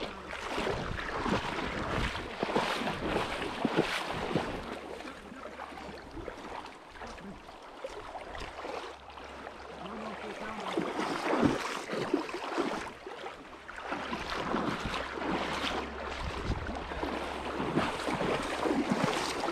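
Shallow, fast river riffle rushing and splashing around a wader's legs as he moves through the current, with wind buffeting the microphone.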